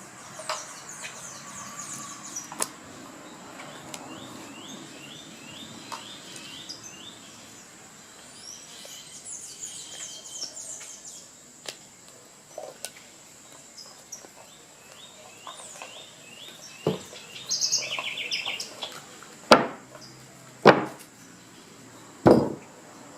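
Birds chirping in short runs of quick falling notes over a faint steady high whine. Near the end come four sharp knocks from handling the band saw wheel, its clamps and the rubber tube tire being fitted.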